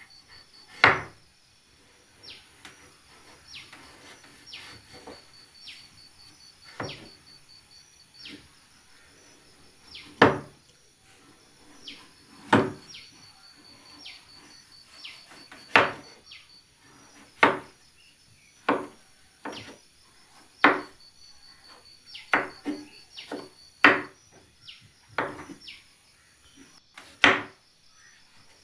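Kitchen knife chopping raw papaya on a wooden cutting board: sharp knocks of the blade hitting the board, irregular and about every second or two. Insects trill steadily and high-pitched behind them.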